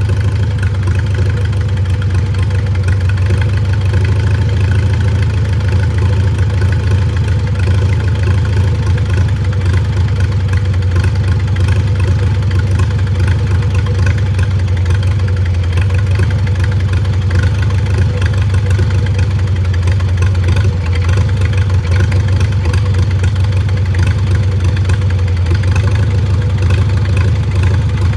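Farmall A tractor's four-cylinder gasoline engine idling steadily with the fuel shut off, running on what is left in the carburetor until it runs dry.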